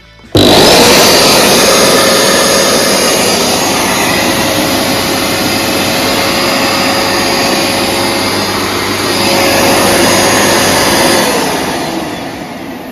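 Vax Platinum carpet washer's motor switched on with a sudden loud start, running steadily with a high whine, then switched off and winding down, its pitch falling near the end.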